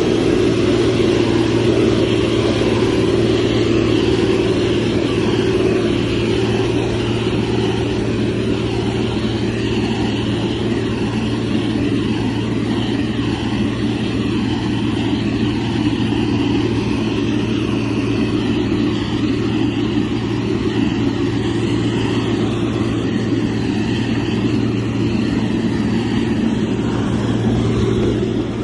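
Motor grader's diesel engine running steadily under load, a constant low drone.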